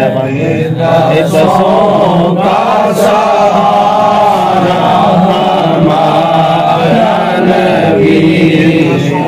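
A voice chanting a slow devotional melody in long, wavering held notes, with a steady low tone underneath.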